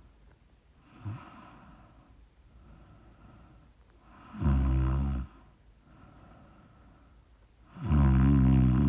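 A sleeping person snoring: two loud, low, rattling snores about three and a half seconds apart, the second running on past the end, with quiet breathing between them.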